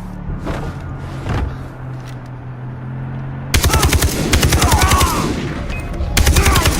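A low steady drone, then two bursts of rapid sharp bangs at about ten a second, like automatic gunfire: the first starts suddenly about three and a half seconds in and lasts under two seconds, and the second comes near the end.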